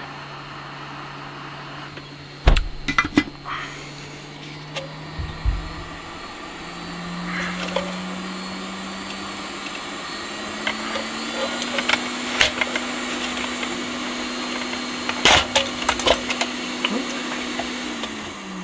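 Hot air gun's fan and heater running with a steady hum, warming old seized grease on a record changer's spindle. The hum steps up in pitch partway through and winds down near the end as the gun is switched off. Sharp knocks and clicks come from handling the stuck turntable platter and tone arm.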